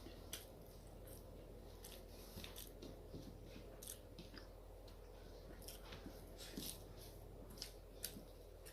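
A person chewing food close to the microphone: soft wet mouth clicks and smacks come at irregular moments over a faint steady hum.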